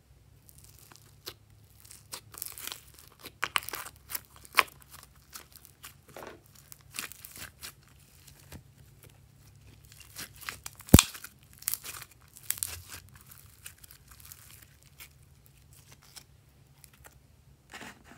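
Purple slime packed with foam beads being squeezed and kneaded by hand, crackling and popping in irregular bursts, with one sharp pop about eleven seconds in.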